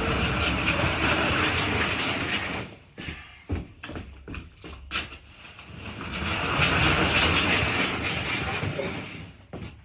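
A heavy bag of building material dragged across the floor: two long scraping slides, the first about three seconds long and the second starting about halfway through, with a few knocks in between.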